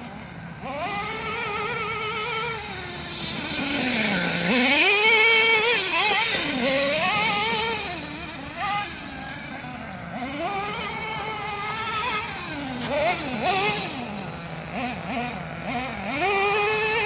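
Small nitro engine of a Redcat Racing Earthquake 3.5 RC truck revving up and down over and over as it is driven, its pitch rising and falling many times, loudest about five seconds in.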